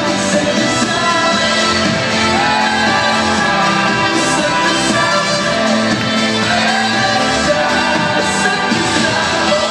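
Live band and singer performing a pop song in an arena, heard from far back through a phone's microphone.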